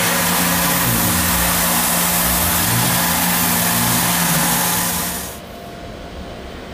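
Tormach Personal CNC mill running, its spindle giving a steady hum while the end mill takes a light widening pass in an aluminium fixture pocket, over a loud, even hiss from the brass nozzle aimed at the tool. Both stop together about five seconds in.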